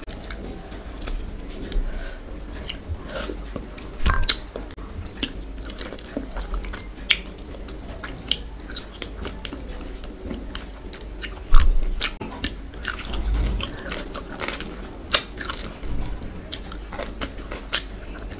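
Close-miked eating sounds: fingers mixing rice and curry by hand, then wet chewing and biting into a piece of fish, with irregular mouth clicks and smacks, a few of them louder.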